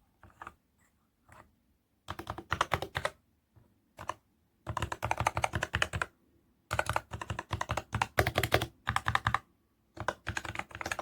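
Typing on a DIERYA x TMKB T68 magnetic-switch keyboard: quick runs of key clacks in several bursts, with short pauses between them.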